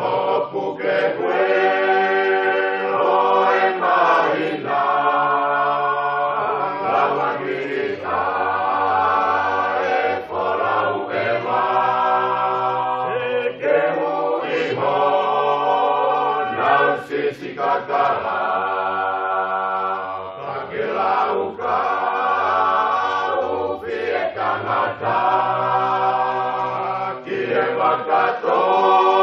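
Choir singing a Tongan song in sustained harmony, with a low bass part under the upper voices, in phrases of a few seconds each.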